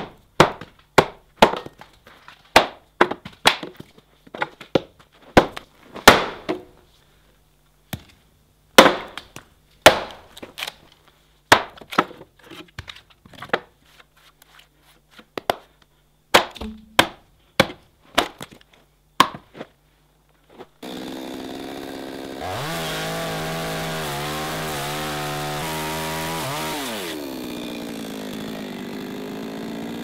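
About two dozen sharp, irregular blows struck on a wooden stump to split off its sawn top. About twenty seconds in, a Rockwell two-stroke chainsaw starts running: it idles, revs up for about five seconds, then drops back to idle.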